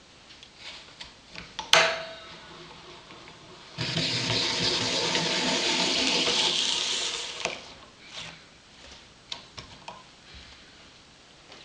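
Hand-cranked apple peeler-corer working an apple through its blades. A sharp click about two seconds in, then a loud, steady scraping hiss for about four seconds, followed by a few small knocks.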